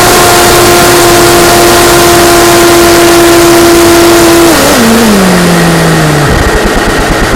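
T-28 model plane's motor running at a steady high pitch over heavy wind rush, heard from on board; about four and a half seconds in the pitch steps down as the throttle is cut, and the tone dies away about six seconds in, leaving a rapid low fluttering.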